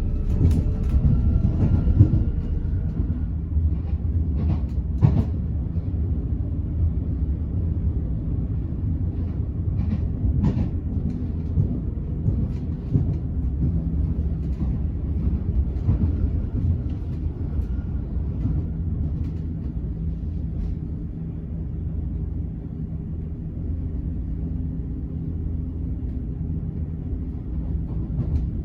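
Train running on the rails: a steady low rumble with scattered sharp knocks from the wheels over the track, and a faint whine that falls in pitch during the first few seconds.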